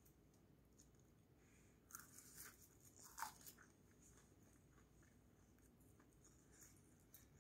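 Faint chewing of a mouthful of rice wrapped in roasted seaweed (gim), with a few small crisp crunches about two to three seconds in.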